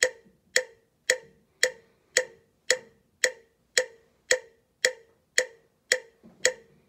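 Metronome clicking steadily at 112 beats per minute, about two short, slightly pitched clicks a second, all of even strength.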